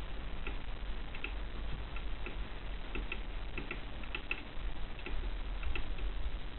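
Short irregular clicks, some in quick pairs, from the controls of a homemade nixie-tube clock as its time is set and the minutes step forward, over a steady low mains hum.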